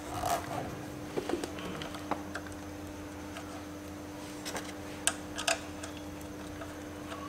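A few scattered, light clicks and taps of small metal parts being handled and fitted as the front-wheel ABS sensor of a Kawasaki Versys 650 is put back on, over a steady hum.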